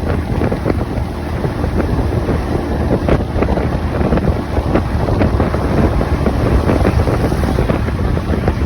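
Wind buffeting the microphone over a steady low rumble, with frequent short crackles.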